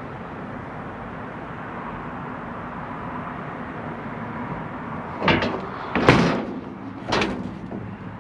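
A steady rushing noise, then three sharp knocks or bangs about a second apart, the middle one the loudest.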